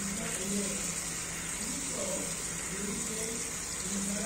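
Tap water pouring steadily from a pipe into a plastic tub, splashing over a potted plant.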